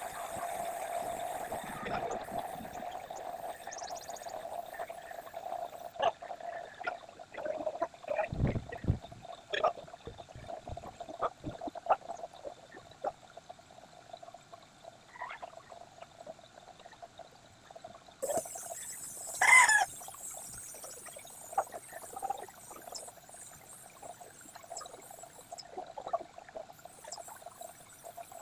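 Air spray gun hissing in spurts as paint is sprayed onto a truck body, fed by an air compressor, with the loudest spurt about two-thirds of the way through. Scattered short clicks and knocks are heard in the middle stretch.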